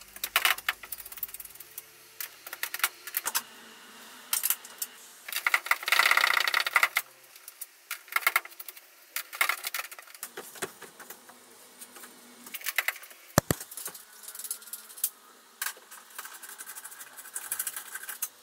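Socket ratchet clicking in quick runs as the 10 mm bolts holding a van's steel bulkhead are undone, the longest and loudest run about six seconds in, with scattered metallic clinks and a sharp knock about halfway through.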